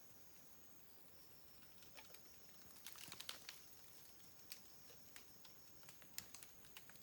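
Faint, steady high-pitched insect drone, with scattered small clicks and taps that bunch together about three seconds in.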